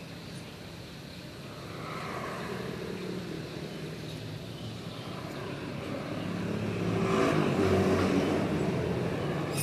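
A motor vehicle's engine passing nearby, growing louder from about six seconds in and loudest around seven to eight seconds, over a steady low background hum.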